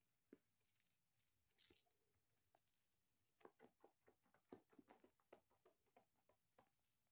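Faint sounds of a cat mouthing and kicking a plush giraffe toy: soft rustling for the first couple of seconds, then a quick run of small clicks, about six a second, as it bites and grips the toy.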